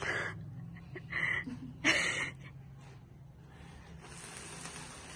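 A fountain sparkler candle on a birthday cake catches about four seconds in and hisses steadily. Before that there are three short noisy bursts, one at the start, one about a second in and one about two seconds in.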